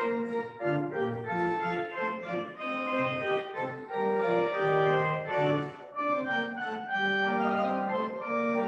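Pipe organ playing: held chords moving from note to note over a shifting bass line.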